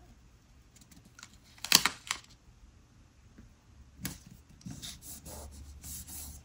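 Paper sticker sheets being handled: two sharp crinkles about two seconds in, then rustling and light clicks as a sticker is peeled and pressed down.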